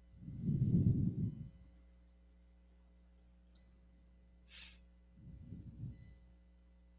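Breath noise on a headset boom microphone: a low rush of air as someone breathes out, twice, with a few faint clicks and a short hiss between.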